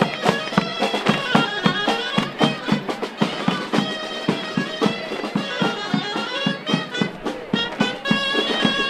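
Traditional folk music for a flag dance: a wind-instrument melody over a quick, steady drum beat.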